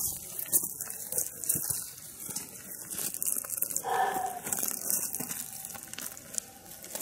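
Rustling and crackling of dry brush and leaves with footsteps on dry ground, as people push through bush, an uneven hissing crackle with many small snaps.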